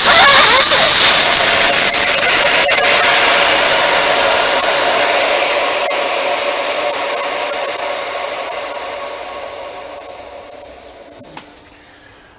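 Air rushing out of a motorcycle rear tyre through its valve stem as the tyre is deflated. It is a loud, steady hiss that starts at full strength and fades gradually over about ten seconds as the tyre empties.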